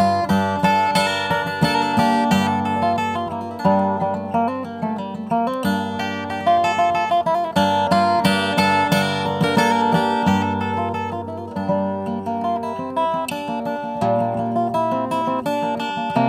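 Acoustic guitar played solo, a steady run of picked and strummed chords that ring on under each new note. About fourteen seconds in, the chord changes and a new bass note comes in.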